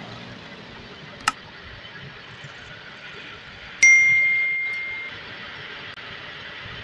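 Metal lathe running steadily with a PPR plastic fitting spinning in its chuck. A short click comes about a second in, then a sharp metallic ding near the middle that rings on and fades over about a second and a half.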